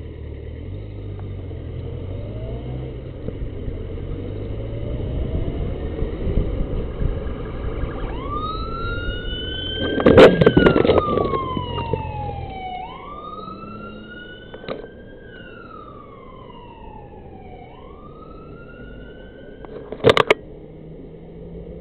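Motorcycle engine and road noise, then an ambulance siren wailing in slow rising and falling sweeps from about eight seconds in. About ten seconds in comes a loud crash as the motorcycle hits the car ahead and goes down, after which the engine noise stops while the siren carries on; a sharp bang follows near the end.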